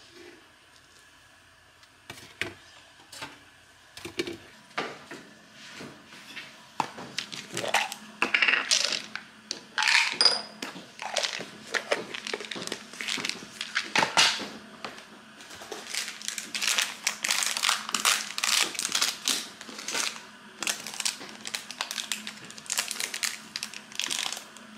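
Kitchen handling sounds: a run of clicks, taps and light knocks of dishes, utensils and containers, sparse at first and busier from about eight seconds in.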